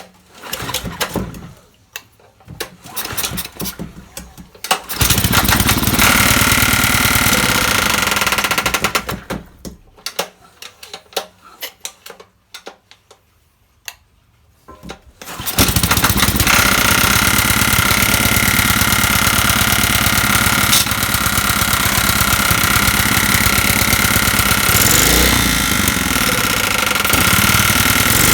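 Old Honda generator's engine being pull-started on its recoil cord: a few tugs, then it catches and runs for about four seconds and dies. After more pulls it starts again about fifteen seconds in and keeps running steadily, now firing after its ignition points were cleaned.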